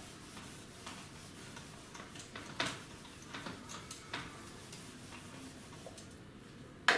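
Whiteboard eraser wiping marker off a whiteboard in short, uneven rubbing strokes, with a louder stroke just before the end.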